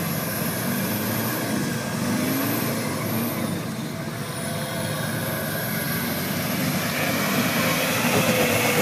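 Land Rover running under way off-road: a steady vehicle drone with faint whines that glide up and down in pitch, growing a little louder about seven seconds in.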